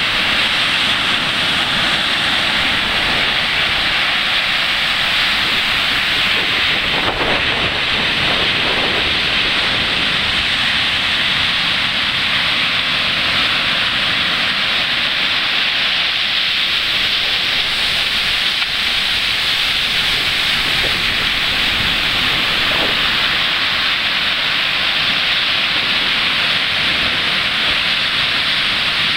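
Ocean surf breaking close by and washing up over sand and rocks: a steady, loud hiss of foaming water with no clear wave-by-wave swells.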